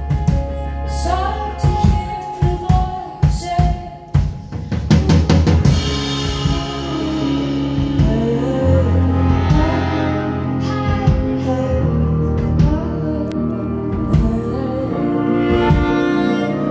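Live band playing, with a drum kit and horns: sharp drum hits with short breaks through the first six seconds, then a steadier passage of held notes.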